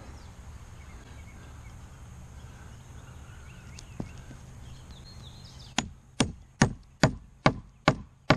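Hammer driving a nail through a paper target and cardboard into an oak board: seven quick blows, about two and a half a second, starting near the end.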